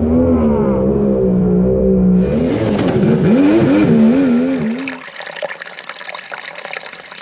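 Mini jet boat's two-stroke Yamaha 1100 three-cylinder engine running hard at speed, its pitch rising and falling with the throttle, over the rush of water spray. It cuts off about five seconds in, leaving a fainter hiss.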